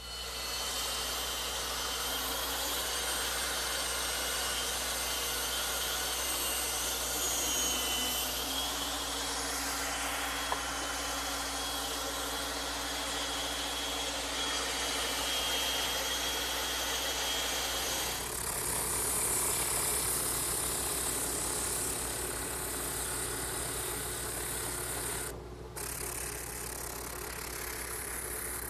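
Bandsaw running and cutting along a curved pencil outline in thick wood stock. Near the end the sound changes, and then drops and continues quieter, as a drum sander spinning in a drill press takes over.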